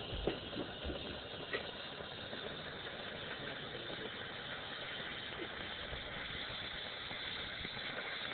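Steady low hiss, with a few faint clicks in the first second and a half.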